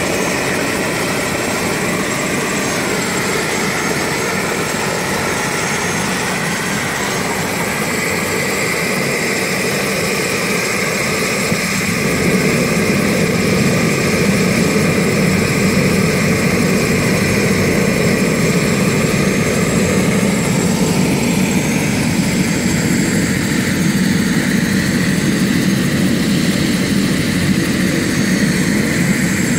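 Turbine helicopter running on the ground with its main rotor turning: a steady turbine whine over rotor noise, growing a little louder about twelve seconds in.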